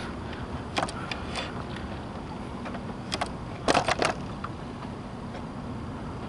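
Several sharp knocks and clicks of the camera being handled and set down against a metal railing, the loudest cluster just before the middle, over a steady low background rumble.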